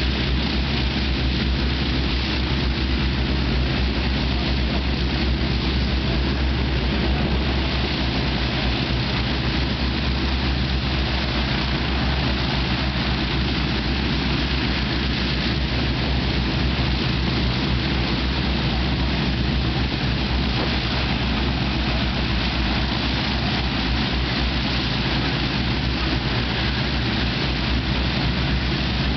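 Avro Shackleton's Rolls-Royce Griffon V12 piston engines running steadily with the aircraft standing still, their contra-rotating propellers turning: an even, deep drone.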